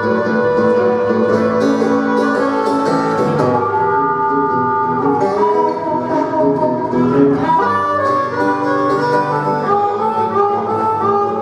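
An acoustic guitar strumming, with a harmonica playing a melody of held notes over it, both amplified through microphones.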